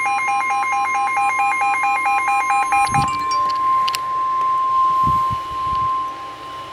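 NOAA Weather Radio warning alarm tone: a loud, steady single-pitch tone near 1 kHz. For about the first three seconds a second alarm tone plays over it, flipping between a low and a high pitch about four times a second. A few low thumps fall in the second half.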